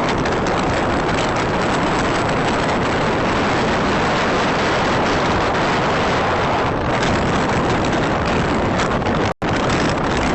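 Steady rushing wind noise buffeting the microphone on a sailing yacht underway, with no engine tone in it. The sound drops out abruptly for a split second about nine seconds in.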